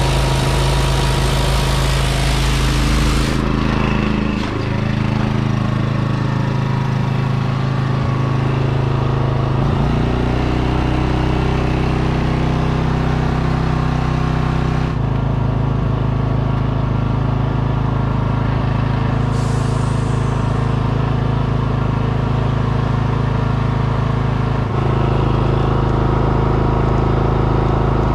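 Portable inverter generator's small engine running steadily, its pitch stepping up and down a few times.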